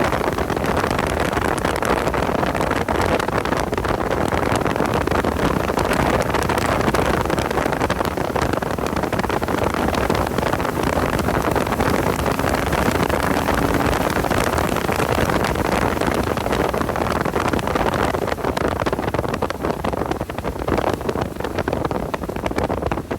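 Porsche 986 Boxster's flat-six engine running at speed on track under heavy, steady wind and road noise, which ease a little near the end.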